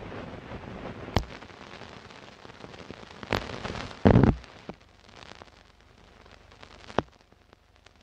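Scratchy old-film soundtrack crackle: a steady hiss with sharp pops and clicks, and a louder low thump about four seconds in.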